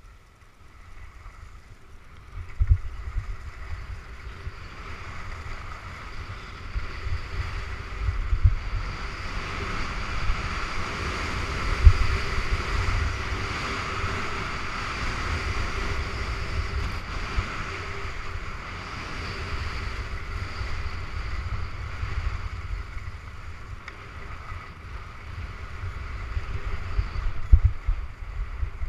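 Wind rumbling on the camera microphone while skiing downhill, over the hiss of skis sliding and scraping on packed snow. The hiss swells through the middle of the run. A few sharp thumps come from bumps, the loudest about twelve seconds in.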